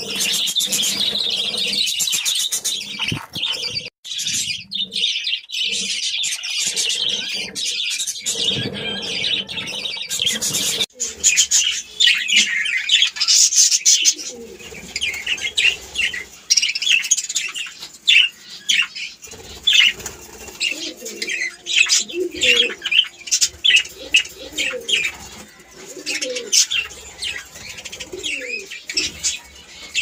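Budgerigars chattering and warbling: a fast, scratchy, unbroken stream of high calls for the first ten seconds or so, then separate chirps and short warbled phrases.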